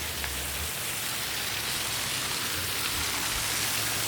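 Steady rush of running, splashing water, growing slightly louder.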